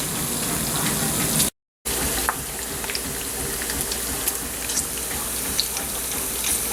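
Bacon sizzling and crackling in a frying pan: a steady hiss with scattered small pops. About a second and a half in it cuts out for a moment, then carries on.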